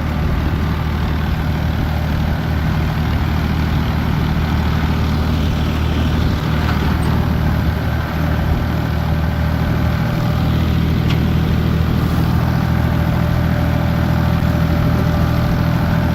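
A heavy vehicle engine running steadily at a constant speed: a low, even hum over a haze of road and wind noise.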